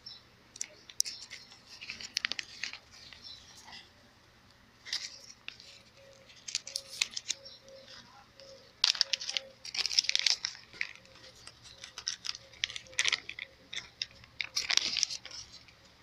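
Irregular rustling and scraping with scattered sharp clicks as parts and tools are handled around an engine that is switched off, loudest in a few clusters near the middle and towards the end.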